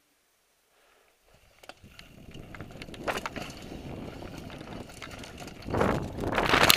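Mountain bike riding fast down a dirt forest trail: the tyres rumble over the ground and the bike rattles, with many sharp knocks. It starts about a second in and swells into a much louder burst of clattering near the end.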